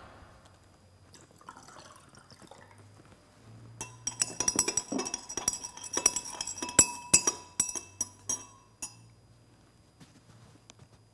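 A glass stirring rod clinking against a glass beaker many times in quick, irregular succession as a clear iodine clock solution is stirred, each clink ringing briefly. It starts about four seconds in and stops about nine seconds in.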